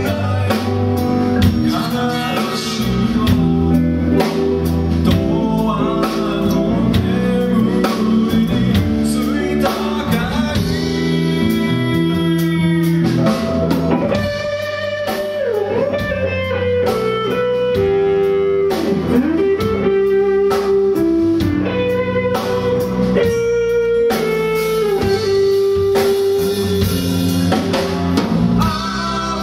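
Live band playing a song on acoustic and electric guitars over a drum kit, with singing. In the second half a held melody line slides up and down between notes.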